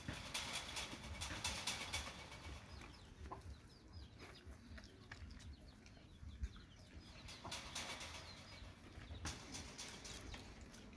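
Chickens clucking and chirping softly, with bursts of scuffling and rustling from dogs moving about on dirt in the first couple of seconds and again near the end.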